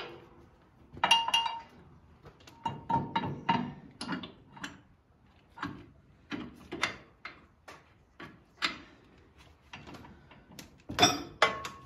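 Steel parts and hand tools clinking and knocking at irregular intervals, a few strikes ringing briefly, as a hydraulic top link's bracket and pins are handled and adjusted by hand.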